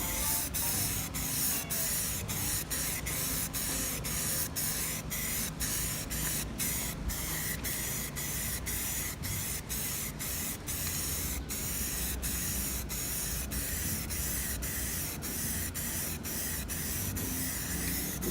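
Aerosol spray can of automotive primer hissing as it sprays, the hiss cut by many short breaks roughly twice a second.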